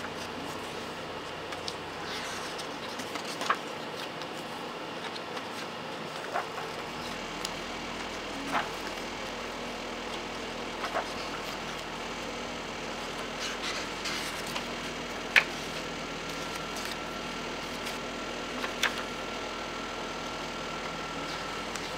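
Pages of a hardcover diary being turned by hand, with a short, sharp paper click every couple of seconds over a steady background hum.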